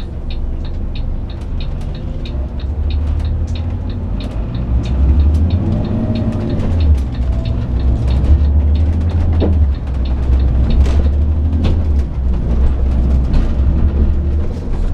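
Coach engine and drivetrain rumbling from inside the cabin as the bus pulls away, growing louder about five seconds in as it gets under way. A regular ticking, about three a second, runs through the first five seconds.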